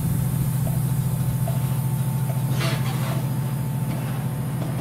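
A diesel train's engine running steadily at idle with a low, even drone and a faint whine above it, and a short hiss of air a little past halfway.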